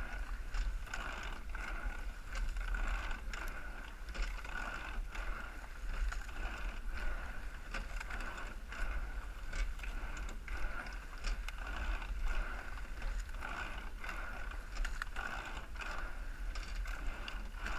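Eight-oared rowing shell under way at race pace: oars clunking in their oarlocks and seats rattling on their slides, a regular clicking once or twice a second with the crew's strokes, over a steady rush of water past the hull.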